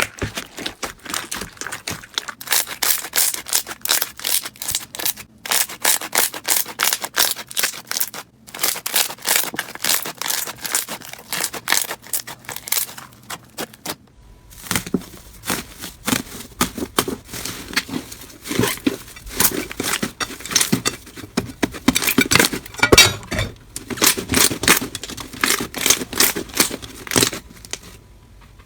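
Slime being squeezed and poked by hands, giving dense, rapid crackling and popping. About halfway through, the crackle turns fuller and lower as a different slime is handled.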